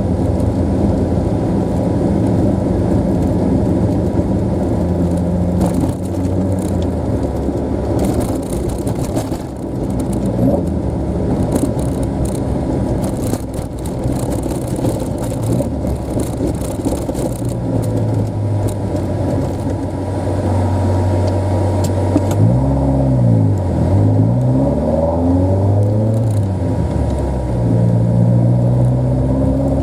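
Toyota AE86's engine running while the car is driven, holding a steady note for most of the stretch. About three-quarters of the way through, the revs climb and drop twice, then climb again near the end.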